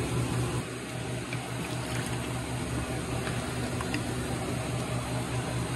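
Steady low kitchen hum with a hiss beneath it, and a few faint light clinks.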